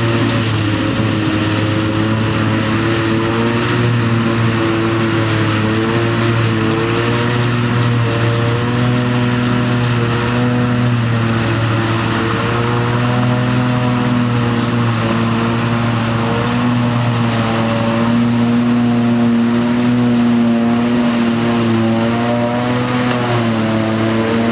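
Claas Jaguar self-propelled forage harvester chopping grass from a windrow with its pickup header: engine and chopper drum under load make a loud, steady drone of several held tones that waver slightly in pitch, over a rushing hiss of crop passing through.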